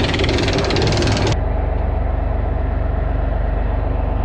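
Steel anchor chain rattling and clanking over the boat's bow roller. About a second and a half in it cuts off abruptly, giving way to the steady low hum of the boat's Detroit Series 60 diesel engine.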